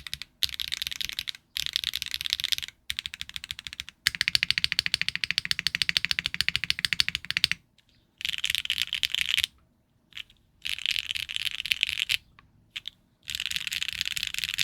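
Custom mechanical keyboard with HMX Martini V2 rail-bottom-out linear switches, in a Neo 75 CU with a carbon fiber plate and no foam, being typed on. Fast runs of keystrokes are broken by short pauses, with the longest run in the middle.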